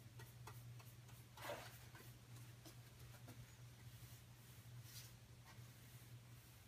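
Near silence: a steady low hum with a few faint clicks and two brief soft swishes, about a second and a half in and again near five seconds.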